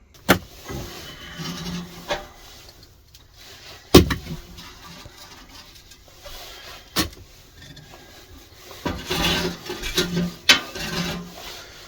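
Hands working on a small steel log burner: four sharp knocks, the loudest about four seconds in, with scraping and rubbing in between as its parts are handled.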